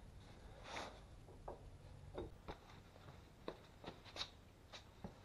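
Faint, scattered light clicks and taps of hand tools being handled, about eight to ten over a few seconds, against quiet shop room tone.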